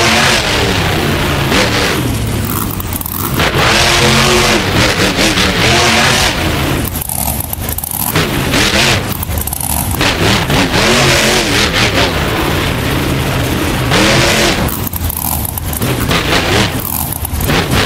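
Monster truck engine revving hard, repeatedly surging to full throttle and dropping back, its pitch rising and falling with each surge.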